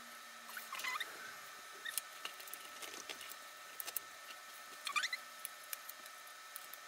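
Paper being folded and pressed down by hand over a small covered board: scattered soft taps and crinkles, with a short squeaky crinkle about a second in and another about five seconds in.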